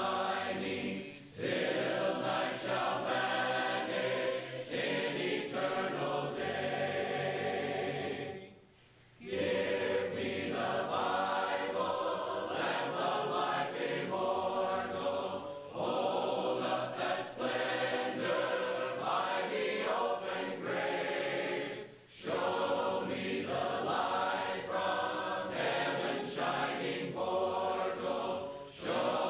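A church congregation singing a hymn unaccompanied, many voices together. There are brief breaks between lines, the longest about nine seconds in.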